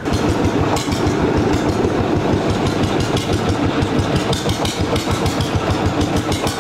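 Motorboat engine running steadily, with an even, rapid chugging pulse.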